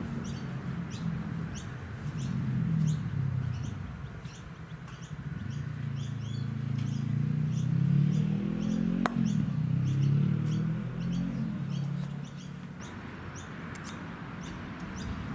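A bird repeating a short high chirp about three times a second, over a low hum that swells and wavers in pitch and then fades. A single sharp knock comes about nine seconds in.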